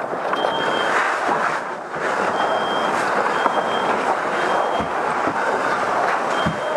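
Residential smoke alarm beeping in its three-beep evacuation pattern, short high beeps about a second apart with a longer pause between groups, over a steady rushing roar inside a burning house.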